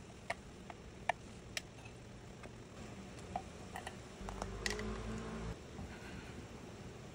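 Small sharp clicks of a screwdriver and tiny screws against a computer board and its metal case, then a small electric screwdriver's motor running steadily for just over a second, about four seconds in.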